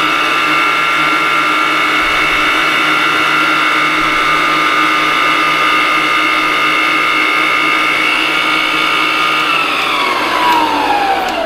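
Hamilton Beach stand mixer motor running steadily with a pitched whine while its beater creams batter in a steel bowl. About nine and a half seconds in it is switched off and the whine falls in pitch as the motor spins down.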